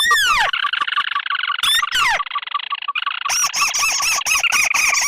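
Recorded crake lure calls, ruddy-breasted crake mixed with a second crake species: a fast, dense chattering trill with several sharp downward-sweeping whistles. It breaks off briefly about three seconds in and resumes with harsher, higher rasping notes layered over it.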